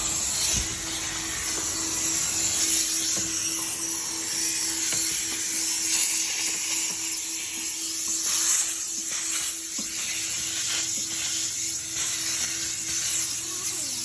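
Coin-operated car vacuum running, a steady rushing suction hiss over a constant motor hum, as its hose nozzle is worked over a car's rubber floor mat.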